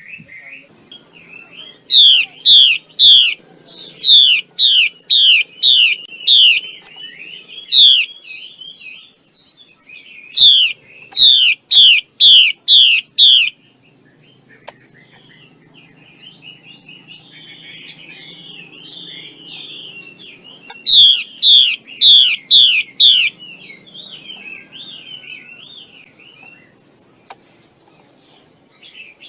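Female Chinese hwamei singing: several runs of loud, quickly repeated down-slurred whistled notes, about two or three a second, with softer chattering between the runs. A steady high-pitched whine runs underneath.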